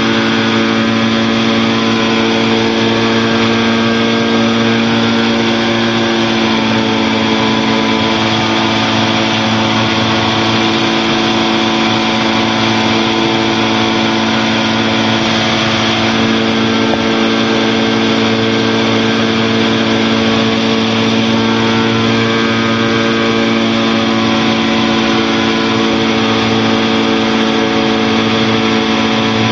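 Challenger II light aircraft's engine and propeller droning steadily in flight, heard from the cockpit. The pitch rises slightly about six seconds in, then holds.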